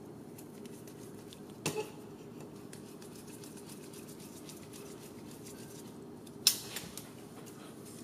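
Small hard parts and screws being handled during assembly: a light click a little under two seconds in, then a sharper, louder clack about six and a half seconds in followed by two softer taps, over a steady low hum.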